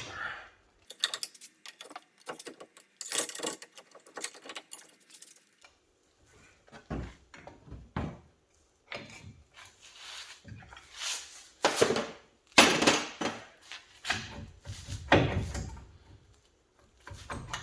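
Hand tools clinking, knocking and scraping on steel front-suspension parts while nuts are worked loose. The sounds are irregular, with several louder scraping, rattling bursts in the second half.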